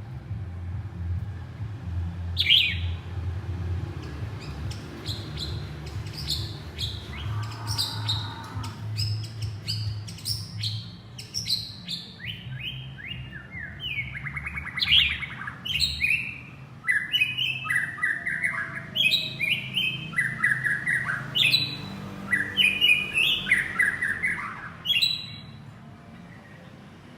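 Male white-rumped shama singing to call its mate: a long, varied run of rapid whistled phrases and chirps that starts about two seconds in and stops near the end, over a steady low hum.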